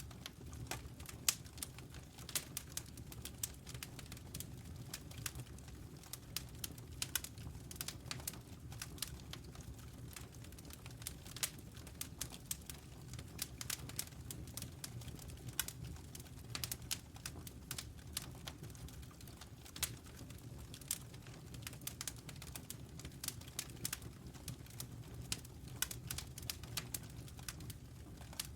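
Wood campfire burning, crackling with many irregular sharp pops and snaps over a steady low rumble of the flames.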